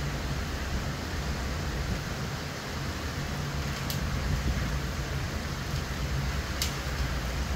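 Hurricane wind and heavy rain: a steady rush of noise with a low rumble underneath. Two brief clicks cut through, about four and six and a half seconds in.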